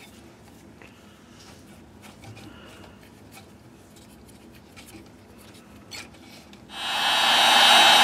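Faint rubbing and small clicks as hands handle wires, then about two-thirds of the way in an electric heat gun switches on and blows steadily with a fan whine, shrinking heat-shrink tubing over a soldered wire splice.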